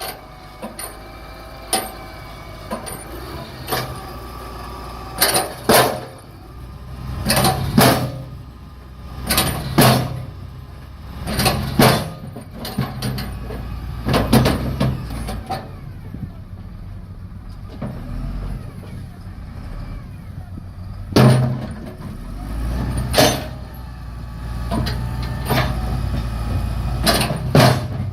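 Heavy road-paving machinery: diesel engines running low and steady, with repeated loud sharp knocks every second or two.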